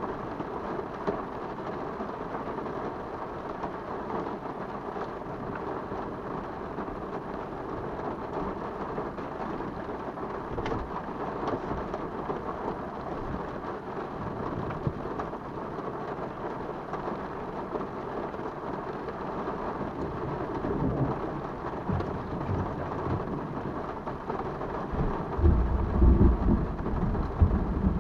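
Steady rain falling during a thunderstorm, with thunder rumbling low; the rumble builds in the last few seconds and is loudest near the end.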